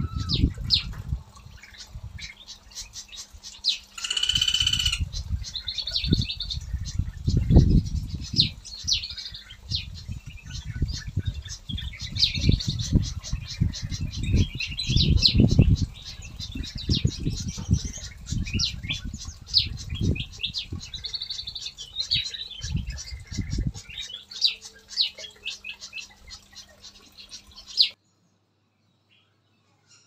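Aviary songbirds chirping and calling in quick short notes, with one loud call at about four seconds. Heavy low rumbling comes and goes underneath. The sound cuts off abruptly about two seconds before the end.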